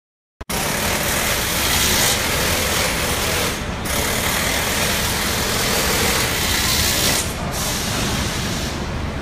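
Loud truck-assembly-plant floor noise: a dense, steady hiss with machinery rumble underneath, which drops out briefly twice.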